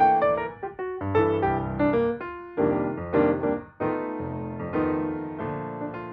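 Piano music: chords and single notes struck one after another, each left to ring and fade.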